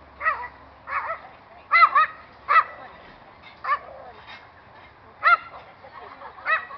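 A dog barking repeatedly in short, high-pitched yips, about eight of them at irregular intervals.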